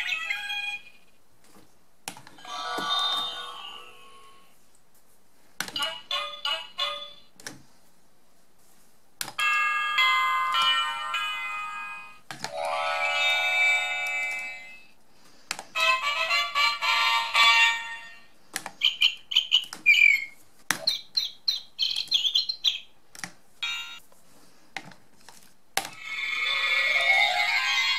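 Sofia the First Magic Wand Sound Book's electronic sound module playing short chiming melodies and magical sound effects, about nine in a row with brief pauses between, each one triggered by touching the wand to a hotspot on the page.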